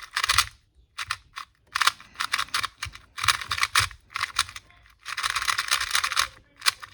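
YJ MGC 2x2 speedcube being turned fast by hand: bursts of rapid plastic clicking and clacking from the layers, in several spells with short pauses between, the longest near the end.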